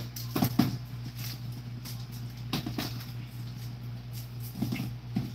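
A few scattered knocks and rustles of groceries being handled and set down, over a steady low hum.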